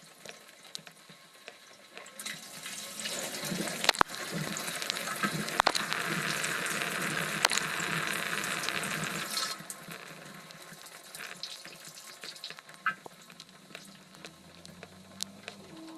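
Water spraying and splashing inside a running LG dishwasher, heard from within the tub. The spray swells to its loudest for several seconds mid-way, then falls back to a quieter wash, with a few sharp clicks along the way.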